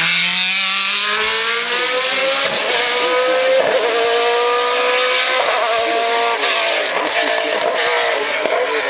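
Racing car engine under hard acceleration, its pitch climbing steadily with two breaks for upshifts, about three and a half and five and a half seconds in, then growing fainter as it passes.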